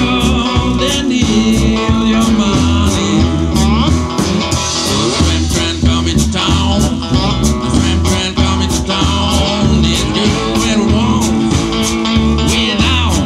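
Live blues band playing: a drum kit keeps a steady beat under a homemade cigar-box guitar and a voice on the microphone.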